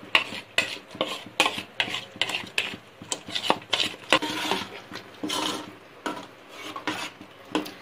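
Steel spoon stirring a thick curry paste in a steel cooking pot, scraping and clinking against the pot's sides and bottom in irregular strokes, several a second.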